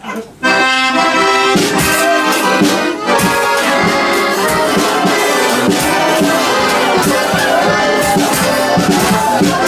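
Costumed carnival band of accordions playing in a pub. It strikes up about half a second in on a held chord, then settles into a steady, rhythmic tune.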